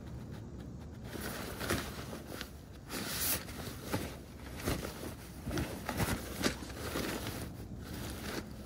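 Fabric storage bag rustling and crinkling as it is handled, with a few light knocks.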